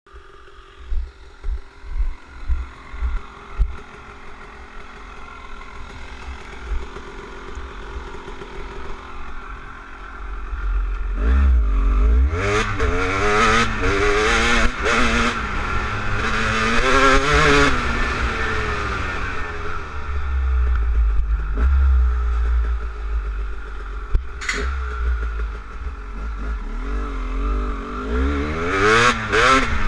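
Off-road motorcycle engine riding along a dirt track, its revs rising and falling again and again as the rider accelerates and changes gear. A series of low thumps comes in the first few seconds before the engine pulls away.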